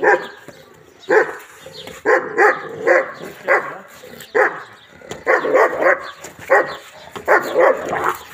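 German shepherd barking aggressively in protection training, loud sharp barks coming singly and in quick runs of three or four.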